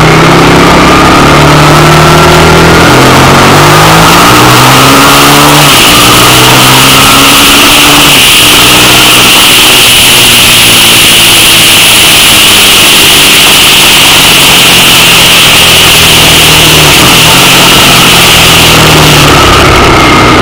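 Suzuki SV650 V-twin motorcycle engine under way, its note rising and falling in steps over the first several seconds, then running steadier. A loud rush of wind and road noise strengthens about six seconds in.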